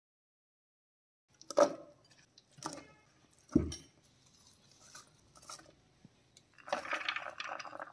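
Ingredients being tipped from small bowls into a clear plastic food processor bowl: three separate knocks and clinks about a second apart, the third deeper, then a busier stretch of clatter near the end.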